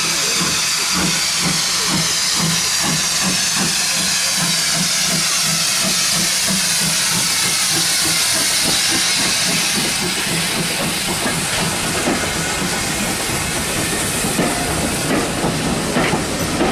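Hudswell Clarke industrial steam tank engine passing slowly at close range: loud hissing steam over a regular beat of about three a second. After about ten seconds the hiss eases and the wheels of its coaches click over the rail joints as they roll by.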